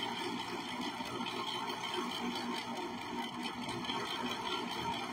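Electric ice cream maker running, its motor humming steadily as the paddle churns the ice cream mix in the bowl.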